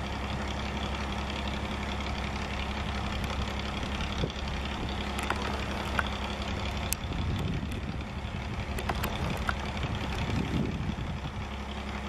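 A steady low mechanical hum, of the kind an idling engine makes. A few sharp clicks are scattered through it, and two short low rumbles come about seven and ten seconds in.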